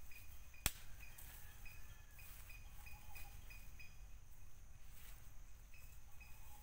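Outdoor forest ambience: a small creature chirping steadily, short high chirps about twice a second, over a low background rumble. A single sharp click sounds just under a second in.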